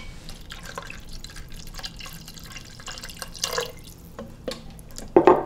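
A cup of water poured from a glass measuring cup into the thickened stew base in an electric pressure cooker, then stirred in with a wooden spoon, the liquid splashing and sloshing. A brief louder thump comes near the end.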